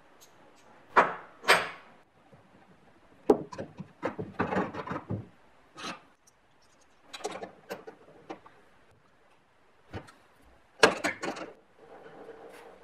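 Small metal rigging hardware, a pulley block and a snap hook, being handled and fitted: a series of separate clicks, clinks and knocks on metal and wood, with a sharp click about three seconds in and the loudest knocks near the start and near the end.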